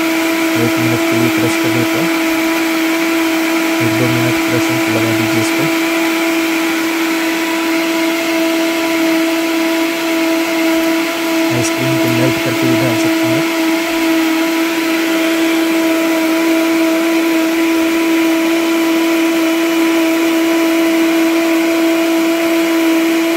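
Deep 'Drink Machine' high-performance commercial blender running at full speed with a steady whine, crushing banana and chocolate pieces. A lower, uneven churning comes and goes during roughly the first dozen seconds.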